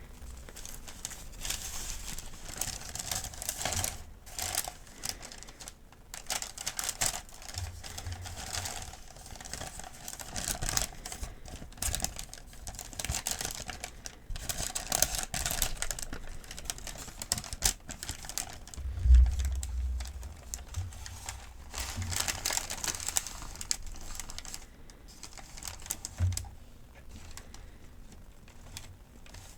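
Close-up paper handling: medication-guide sheets crinkling and rustling with irregular crackles and taps, and a low thump about two-thirds of the way through.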